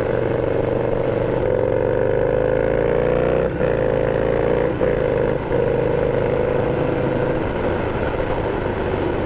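Harley-Davidson Sportster V-twin engine under way, its pitch rising as it accelerates and then breaking off sharply about three and a half seconds in at a gear change. Two brief dips follow, then it runs at a steady pitch and eases off near the end.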